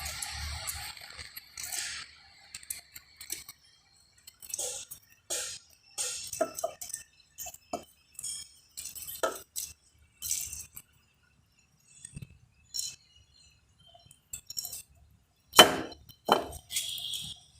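Metal engine parts clinking and tapping as a motorcycle cylinder head is handled and fitted onto the engine, in scattered light clinks with two louder knocks near the end.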